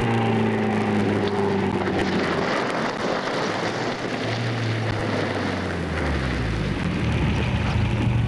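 MGB roadster's four-cylinder engine running as the car drives up. Its pitch falls over the first couple of seconds as it slows, there is a rushing noise in the middle, and from about four seconds in a low steady engine note settles in as it pulls up.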